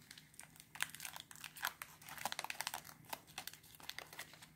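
Foil wrapper of a Magic: The Gathering Double Masters booster pack crinkling and crackling in the fingers as it is picked at and peeled apart, in a run of short, irregular crackles.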